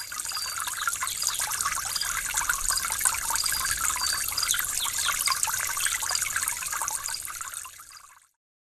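Water trickling, a dense noise full of small chirps, fading in at the start and fading out near the end.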